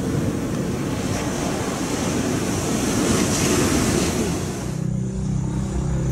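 Rushing wind and ocean surf noise on an outdoor camera microphone. About five seconds in it cuts off abruptly and a steady low hum takes over.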